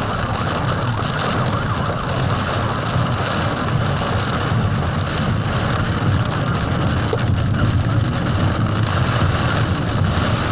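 Steady road and engine rumble heard inside a moving car, with rain hissing on the car. A wavering siren fades out in the first second.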